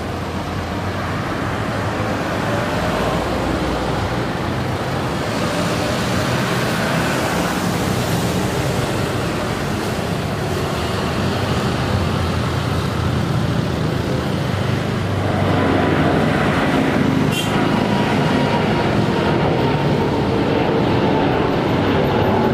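Airbus A350-941's Rolls-Royce Trent XWB jet engines at takeoff thrust as the airliner lifts off and climbs: a steady rushing engine noise that grows louder, stepping up about two-thirds of the way through, with a faint held whine near the end.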